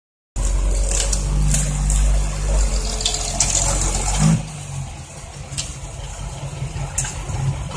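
Six-wheel dump truck's diesel engine working hard under load as the laden truck pulls through soft, muddy soil, easing off about four seconds in and running on more quietly. A few sharp clicks sound over it.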